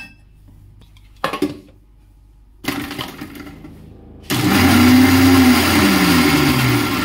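Electric mixer grinder with ghee and ice cubes in its steel jar, after a couple of knocks. About four seconds in, the motor starts and runs loudly, its hum falling in pitch.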